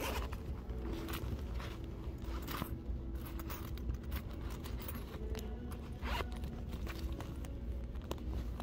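Rummaging inside a fabric bag, heard from inside it: muffled rustling, scraping and zip-like sounds with irregular clicks as things are moved about in the search for a coin.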